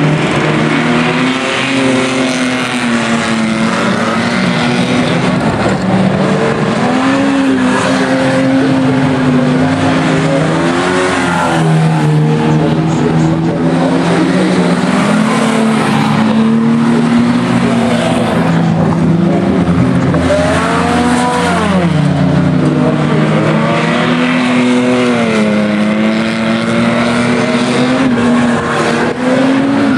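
Several banger racing cars' engines being driven hard around a track, overlapping engine notes revving up and down as the cars accelerate, lift and pass.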